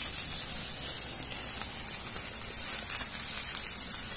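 Rain falling: a steady high hiss with a few faint ticks of drops.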